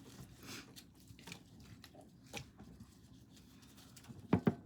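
Raw shrimp being peeled by hand: faint wet crackling and clicking of shells coming off, with two louder clicks in quick succession near the end.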